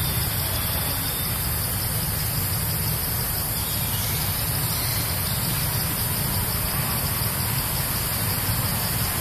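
Steady outdoor background noise: a constant low rumble under a continuous high hiss, with no distinct events.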